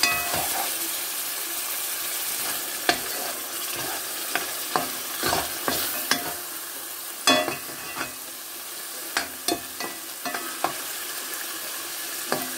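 Tomato stew with salmon pieces sizzling and bubbling in a metal pot, with a steady hiss. A metal spoon knocks and scrapes against the pot a dozen or so times at irregular intervals as the stew is stirred.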